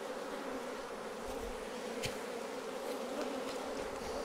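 Honeybees buzzing around opened hive boxes, a steady hum of many bees. A single light knock sounds about two seconds in.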